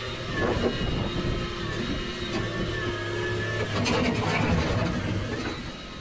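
Volvo crawler excavator's diesel engine running under load as it climbs the ramps of a lowboy trailer, with a steady low hum and scattered metallic knocks from the machine.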